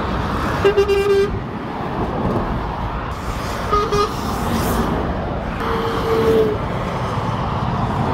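Steady motorway traffic rumble from passing lorries, with vehicle horns sounding three times: a held toot about a second in, a short toot near the middle, and a longer one around six seconds in.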